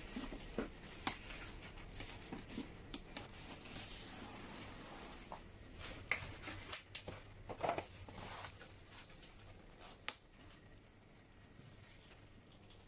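Box cutter slicing packing tape on a cardboard box, with short scrapes, sharp clicks and cardboard flaps being handled. The handling noises thin out after about ten seconds.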